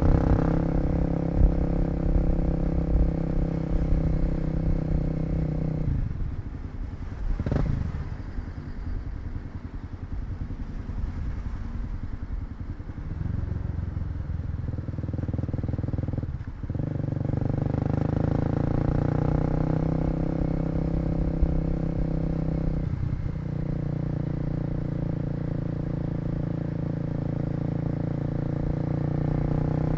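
Kawasaki KLX250 single-cylinder four-stroke engine running under way: the throttle closes about six seconds in and the engine drops back, then it pulls again, with short breaks in the sound for gear changes about 16 and 23 seconds in.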